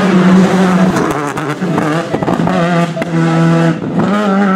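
Škoda Fabia R5 rally car's turbocharged four-cylinder engine running hard at high revs. Its pitch breaks and dips briefly a couple of times as it shifts gear, with a few sharp pops.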